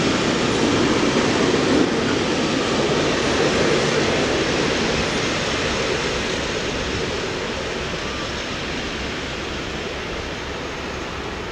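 Freight train of empty tank wagons hauled by an SŽ class 664 diesel locomotive rolling through a station: a steady rushing rumble that gradually fades as the train moves away.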